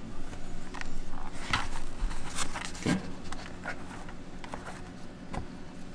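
Scattered light clicks and rubs of fingers pressing a small plastic control-horn clip into the foam wing of a model plane, over a faint steady low hum.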